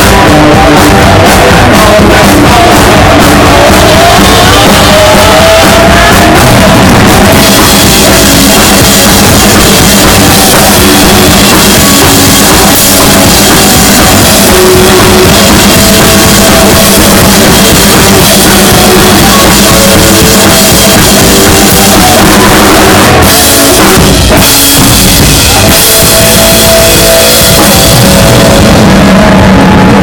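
Live blues-rock band playing very loud: electric guitar, bass guitar and drum kit with cymbals, recorded on a cell phone close to the stage. The sound grows brighter and denser about seven seconds in.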